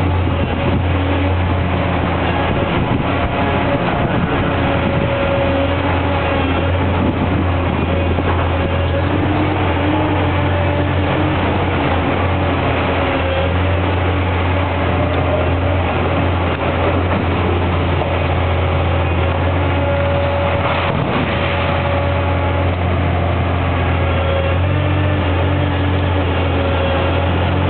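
High-reach demolition excavator running steadily, its diesel engine giving a constant low hum with a fainter hydraulic whine that comes and goes and shifts in pitch as the long boom works.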